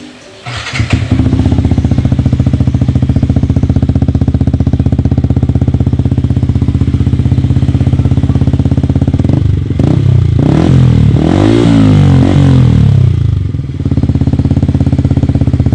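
Motorcycle engine through a Triton stainless steel full-system aftermarket exhaust, starting up and idling with a steady, even beat, then revved several times about ten seconds in before settling back to idle.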